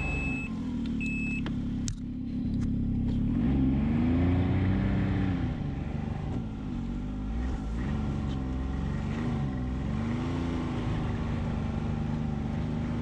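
Ski-Doo Expedition snowmobile under way in snow, its engine rising and falling in pitch as the throttle is worked, then holding steady near the end. A few short high beeps sound at the start.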